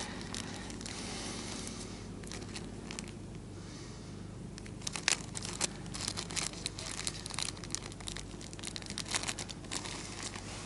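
Light crinkling, rustling and small clicks of hands handling fishing tackle and bait, with the clicks coming more often from about five seconds in, over a faint steady low hum.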